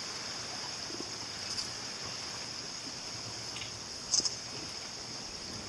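Steady, high-pitched drone of an insect chorus, with a brief, sharper sound about four seconds in.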